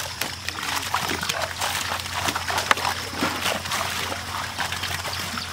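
A net crowded with live tilapia, the fish flapping and splashing, with water splattering and dripping into a basin as they are handled. Irregular wet slaps and splashes, one after another.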